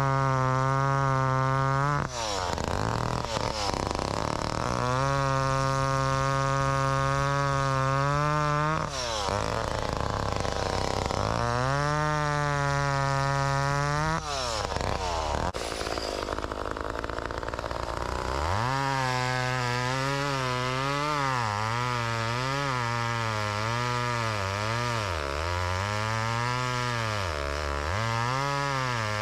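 McCulloch Pro 1010 Automatic two-stroke chainsaw with a 20-inch bar, revved to a high steady pitch three times, dropping back between the bursts. About two-thirds of the way through it settles into running under load, its pitch dipping and recovering as it cuts firewood.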